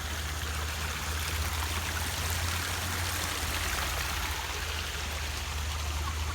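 Steady rush of running water, heard as a dense, even hiss, over a low steady rumble.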